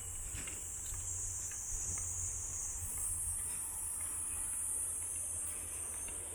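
Steady high-pitched insect chorus, like crickets, over a low rumble, with a few faint clicks.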